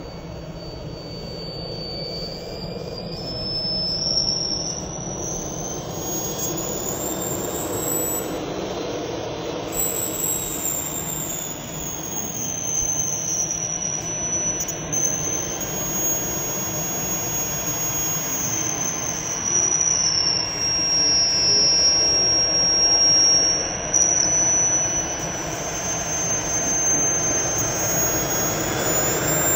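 The small turbine engine of a 1:5-scale BVM L-39 Albatross model jet runs with a rushing roar. Over it is a high whine that slowly rises and falls in pitch, and the sound grows louder toward the end.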